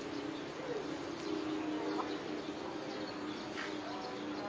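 Birds calling faintly a few times over a steady low hum.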